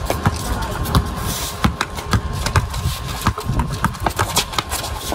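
Basketball bouncing on concrete as players dribble and move, irregular sharp bounces about two a second.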